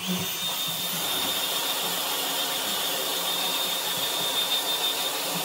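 Dyson Supersonic hair dryer running: a steady rush of air with a thin, high whine, switching on suddenly at the start and holding level.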